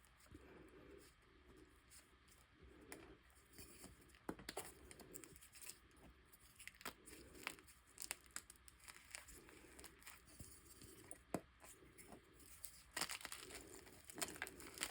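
Soft chalk being crushed by hand, crumbling with faint crackles and scattered sharp pops, the crackling growing denser and louder near the end.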